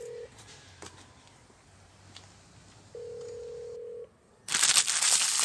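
A steady electronic tone sounds for about a second, twice, roughly three seconds apart. About four and a half seconds in, a loud scratchy noise starts.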